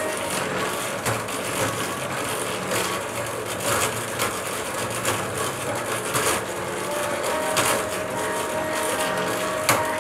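Jointed wooden pendulum arms swinging on metal pivots, with irregular clicks and knocks from the joints over a steady hiss and low hum.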